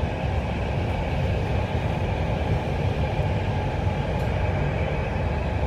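Steady running rumble of a passenger train, heard from inside the carriage as it crosses a steel truss bridge.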